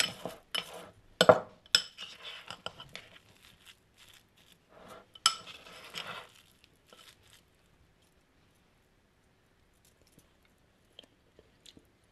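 Metal spoon scraping and clinking against a ceramic bowl while stirring a thick, chunky spread. There are quick strokes at first and a busy flurry about five seconds in, and the stirring stops about halfway through.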